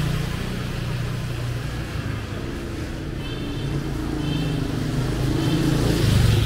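Street traffic passing: the engines of passing vehicles hum, getting louder near the end, with three short high beeps in the middle.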